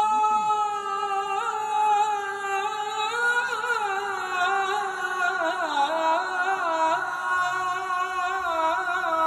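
A man's solo voice chanting the sala, the Islamic chanted call for the dead, into a microphone. It is one long held phrase with quick wavering ornaments in the middle that sinks a little lower before cutting off near the end.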